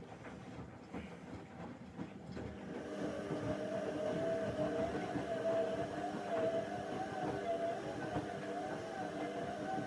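Bauknecht WA Aquaton 1400 washing machine running a wash cycle: a low rumble for the first few seconds, then about three seconds in a louder motor hum with a wavering pitch sets in and keeps going.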